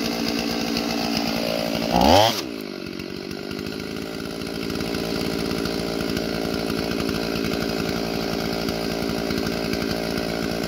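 Stihl 044 two-stroke chainsaw running at high throttle while bucking a large log. About two seconds in it briefly revs higher and louder and drops back, then runs steadily under load in the cut.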